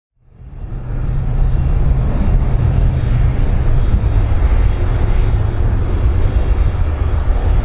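Engines of a large airplane running with a loud, steady low rumble that rises quickly out of silence at the start.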